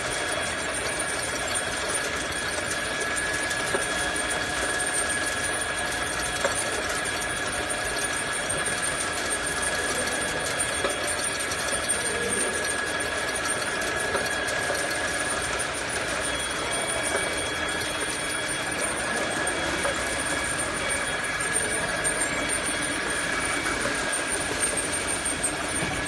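Engine oil bottle capping line running: the slat-chain conveyor and the capping machine's motor give a steady mechanical hum with a constant high whine.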